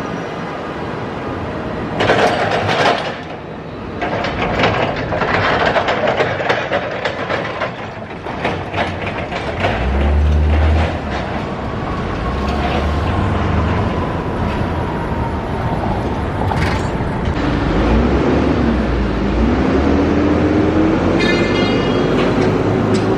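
Busy city street traffic, with a heavy vehicle rumbling past close by about ten seconds in. An emergency-vehicle siren then winds up in a slow rising wail, with a brief horn blast near the end.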